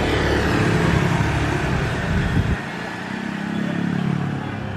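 Passenger train rolling away over the rails with a heavy low rumble that stops suddenly about halfway through. A motorcycle engine then runs as traffic starts over the level crossing.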